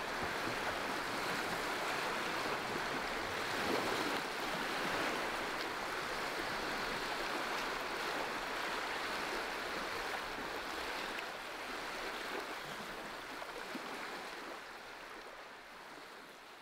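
Lake water washing steadily against a rocky shore, fading out over the last few seconds.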